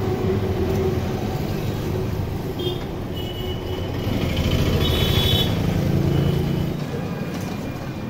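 Road traffic: a motor vehicle's engine runs as it goes by, swelling to its loudest about five seconds in and fading after, with a few brief high-pitched tones.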